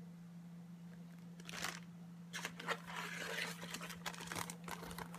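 Plastic zip-lock tobacco bag crinkling and rustling as it is handled, in faint short bursts about a second and a half in and again a little later, over a steady low hum.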